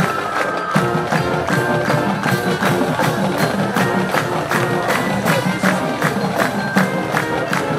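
Marching band playing: sustained wind and brass notes over a steady drumline beat.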